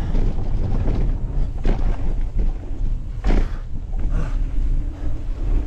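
Wind rushing over the microphone with the rumble and rattle of a mountain bike rolling fast over a wooden berm and onto a dirt trail, with a few sharp knocks about two, three and four seconds in.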